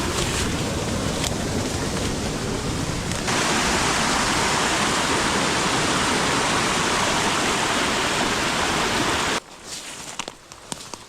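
Rushing water, as from a waterfall or fast stream: a loud, steady rush that grows slightly brighter about three seconds in and cuts off abruptly near the end, leaving faint ticks and rustles.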